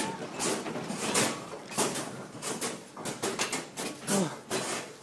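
Office furniture and fittings shaking in a strong earthquake: partitions, desks and loose objects rattling, with many irregular sharp knocks and clatters.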